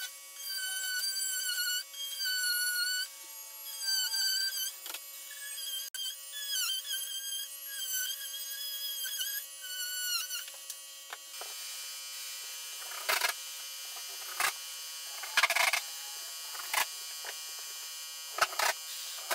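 A small high-speed cordless power tool whining at a high pitch, its speed sagging and recovering in short strokes as it cuts an outlet box opening in a wall panel. After about eleven seconds it gives way to several sharp knocks and short bursts as the panel is handled and fastened to the wall.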